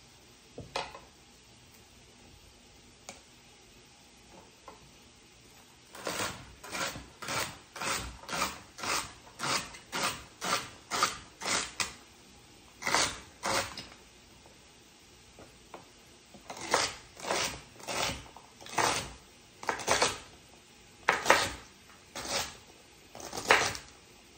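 Chef's knife chopping celery stalks on a cutting board. A few single knocks at first, then a quick run of chops about two or three a second, then slower chops in the second half.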